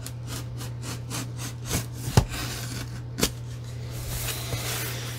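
Utility knife blade scraping and slicing along the taped seams of a cardboard shipping box, in a run of short strokes with a few sharp clicks around two and three seconds in and a longer scrape near the end.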